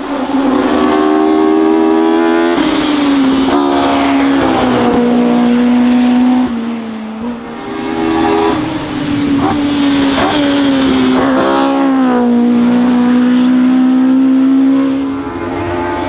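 Hill climb race car engine running at high revs, its pitch stepping down and climbing again several times with gear changes and lifts for corners. It drops quieter for about two seconds mid-way, and falls away again near the end.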